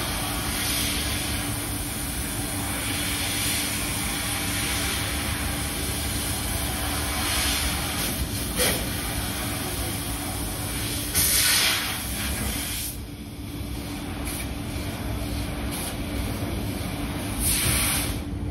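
Laser cutting machine cutting aluminium sheet: a steady hum and hiss of the machine and its gas, with a steady low tone under it. Louder gusts of hiss come about eleven seconds in and again near the end.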